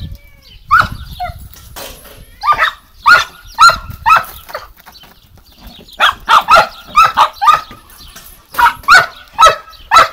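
Dog barking repeatedly, in runs of several quick barks with short pauses between the runs.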